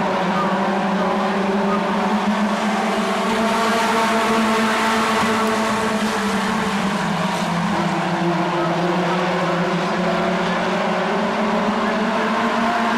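A pack of stock cars racing on a short oval, several engines running together as one steady drone. Their pitch dips briefly about eight seconds in, then climbs again.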